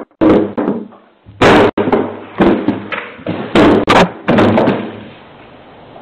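A cardboard parcel being smashed on a doorstep: a run of about five loud thuds and bangs over four seconds, fading away near the end. The thin, band-limited sound is typical of a doorbell camera's audio.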